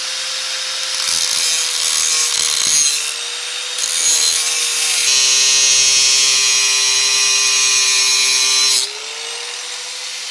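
Angle grinder with a cutoff disc running steadily and cutting a thin metal strap in two bouts: a short cut about a second in and a longer one from about four seconds to nearly nine. The motor's whine drops in pitch under load and climbs back once the disc comes off the metal.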